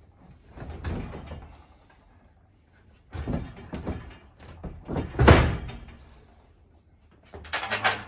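Steel rolling tool cabinet being shoved back into place on its casters: bursts of metal knocks and rattles, with a drawer sliding open and one heavy thump about five seconds in, then more clatter near the end.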